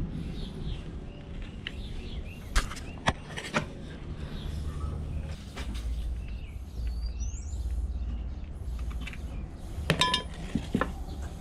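A few sharp metallic clinks and knocks: three about half a second apart near the start and a quick cluster near the end, over a low rumble, with one brief bird-like chirp in between.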